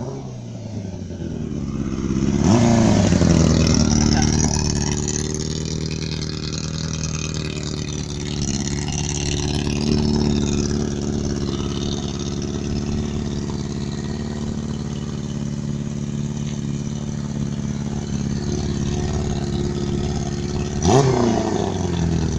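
Yamaha R6 sport bike's inline-four engine. Its pitch climbs over the first couple of seconds to its loudest, then it runs steadily at a low idle, with one quick throttle blip up and back down near the end.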